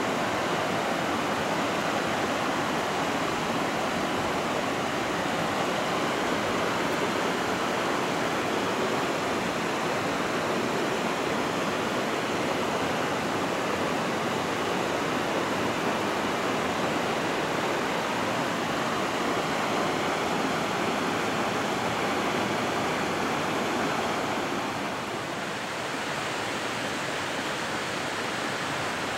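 Steady rush of flowing water in a mountain river, an even hiss with no breaks. It eases slightly near the end.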